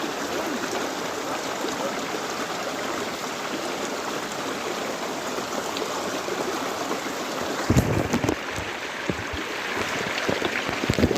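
Stream water running steadily as an even rushing. About two-thirds of the way through, a run of dull low thumps and knocks joins it.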